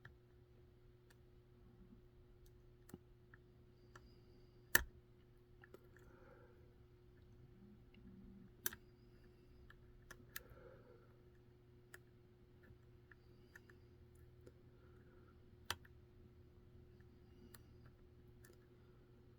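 Faint, scattered clicks of a pick working the pin stack of a BKS Detect 3 euro cylinder held under tension by a turning tool, with a few sharper clicks about 5, 9, 10 and 16 seconds in. A faint steady hum runs underneath.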